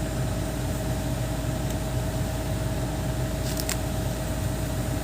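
Hitachi 210 excavator's diesel engine idling steadily. A couple of short sharp clicks come about three and a half seconds in.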